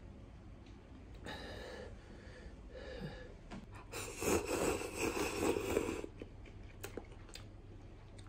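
A man slurping instant cup noodles for about two seconds, about halfway through. Before it come a couple of short, rushing breaths.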